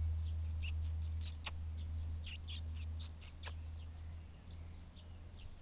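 A small bird chirping: two quick runs of about six sharp, high chirps each, over a low steady rumble.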